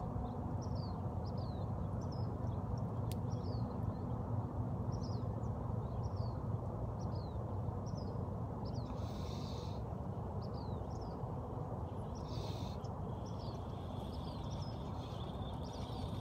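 A small bird chirping repeatedly: short, high, down-slurred chirps about once a second, over a steady low background rumble. Two brief hisses come near the middle.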